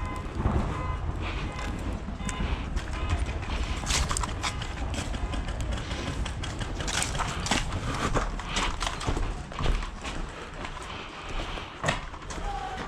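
Irregular knocks and clatter of an airsoft player's footsteps and gear as they move, over a steady low rumble of wind and handling on the body-worn microphone.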